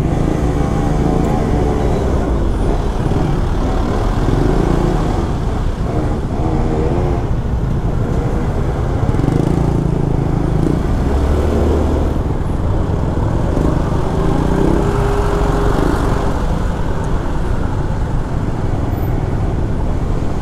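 Motorcycle engines in slow, stop-and-go street traffic, the engine note rising and falling several times as the bikes pull away and slow down, over a steady traffic rumble.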